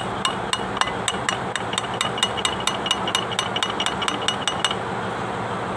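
Rapid light hammer taps, steel on steel, each with a short ringing clink, on the ball bearing around the splined shaft of a Kubota Bultra B16 tractor's front axle housing cover. They come about four to five a second and stop about a second before the end.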